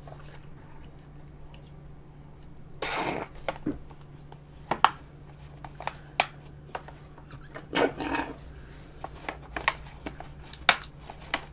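Close-miked drinking of banana milk through a straw from a small carton, then the carton and straw being handled: two short noisy bursts, about three and eight seconds in, and scattered sharp clicks.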